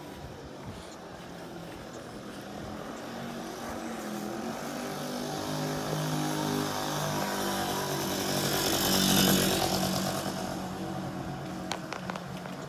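A motor passing by: its engine drone and hiss build slowly, are loudest about nine seconds in, then fade away.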